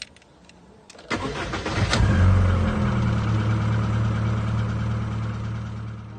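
A car engine is cranked on the starter for about a second, catches and settles into a steady idle. The idle eases slightly in level toward the end.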